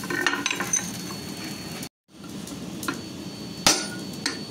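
Hand hammer striking a tool held across a red-hot steel bar on a steel-plate anvil: several sharp metallic blows, the loudest ringing a little, about three-quarters of the way through. The sound cuts out completely for a moment about two seconds in.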